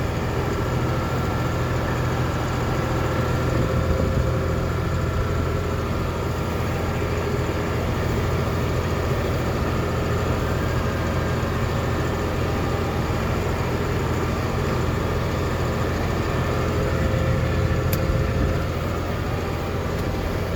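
Tractor engine running steadily while pulling a round baler through the hay, heard from inside the cab as an even, unchanging low drone.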